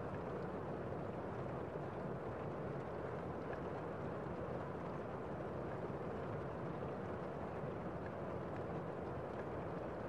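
Heavy rain outside heard from inside a room: a steady, muffled rushing with the high end dulled.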